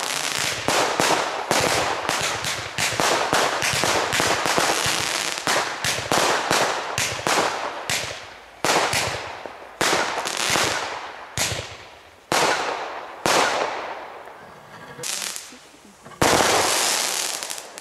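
Consumer firework batteries (cakes) firing: a rapid string of bangs from shells launching and bursting, thinning out in the second half to single bangs about a second apart, each trailing off in a fading echo. Near the end a loud, sustained rush of noise starts.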